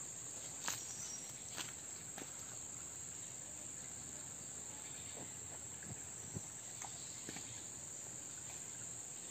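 Insects (crickets) trilling in a steady, faint, high-pitched drone, with a few soft ticks scattered through it.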